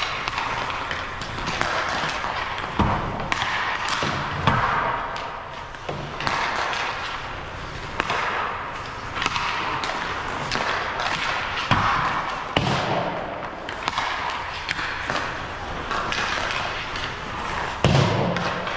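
Ice hockey stick-and-puck session: skate blades scrape on the ice in swelling, fading strokes, while sticks click sharply on pucks. Pucks thud against the boards now and then, the loudest thud coming near the end.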